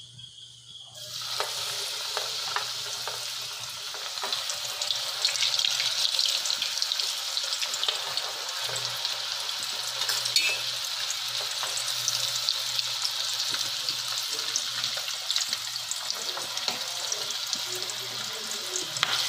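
Oat-coated chicken pieces frying in hot sunflower oil in a steel pot: a steady, dense sizzle and crackle that starts about a second in as the oil takes the chicken.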